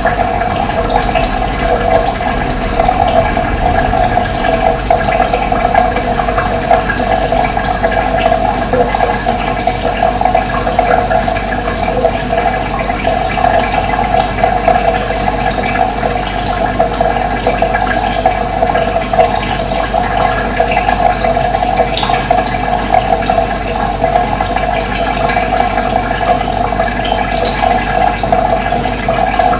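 Running water flowing steadily, with occasional short high bird chirps over it.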